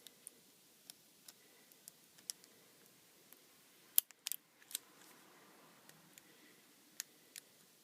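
Scattered small, sharp clicks and taps of a ribbon cable being worked into its connector on a smartphone's circuit board, the loudest a single click about four seconds in, followed by a few quicker ones.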